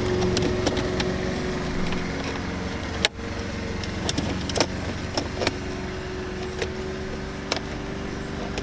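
Car engine running steadily, with scattered light clicks and knocks and a brief break in the sound about three seconds in.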